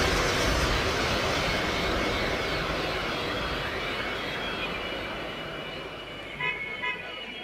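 Electronic background music ending in a whooshing noise sweep that fades out steadily over several seconds. Faint tones of the next piece of music come in near the end.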